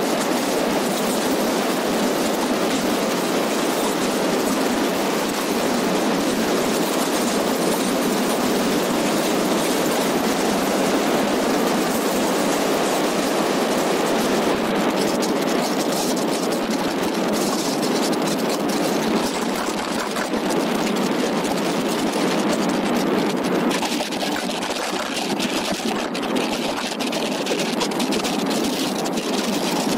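Steady rush of wind and tyre-on-asphalt road noise picked up by a camera mounted on a moving road bike, dipping slightly in level about three-quarters of the way through.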